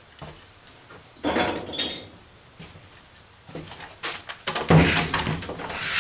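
Metal handling noise from a steel computer tower: a short clatter about a second in, then a run of knocks and rattling from about halfway on as hard drives are worked loose in the case's drive cage.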